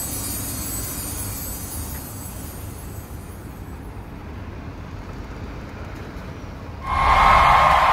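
Steady road-traffic noise with a low rumble of passing vehicles, then a sudden loud hiss about seven seconds in.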